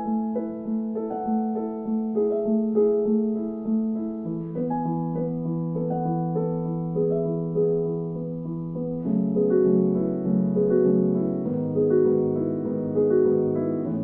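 Soft background piano music: a gentle melody of evenly paced notes over low held chords that change every few seconds.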